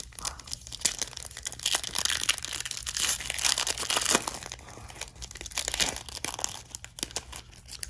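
A foil Panini Prizm trading-card pack wrapper being torn open and crinkled in the hands: a dense crackle of sharp crinkles, loudest in the middle.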